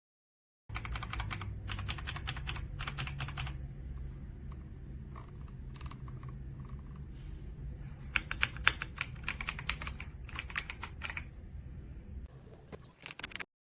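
Typing on an AJAZZ AK820 75% mechanical keyboard: fast runs of key clicks about a second in, then sparser presses, then another quick burst of typing about eight seconds in.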